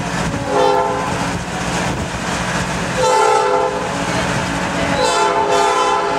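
Diesel locomotive horn sounding three blasts about two seconds apart, the first short and the other two longer, over the steady rumble of the moving train.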